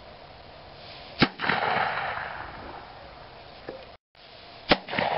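Black-powder handgonne firing about a second in: one sharp crack followed by a rush of echo dying away over about a second. Near the end a second, similar crack with a trailing rush.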